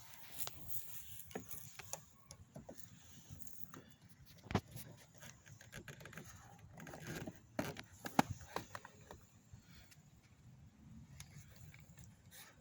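Scattered light clicks and knocks of objects being handled, with two sharper knocks about four and a half and eight seconds in.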